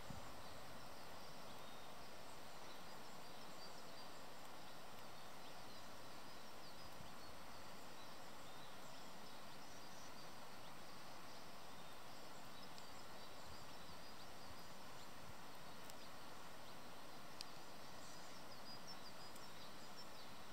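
Steady outdoor background hiss with faint, scattered high bird chirps, and a single faint click about 17 seconds in.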